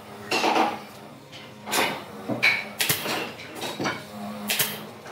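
Pneumatic brad nailer firing nails into a wooden table frame: about six sharp shots, roughly a second apart.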